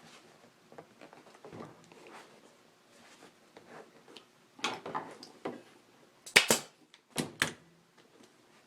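Staples being pried out of a motorcycle seat pan to loosen the cover: scattered small clicks, then a run of sharp clicks about four and a half seconds in and a few loud, sharp snaps between six and seven and a half seconds.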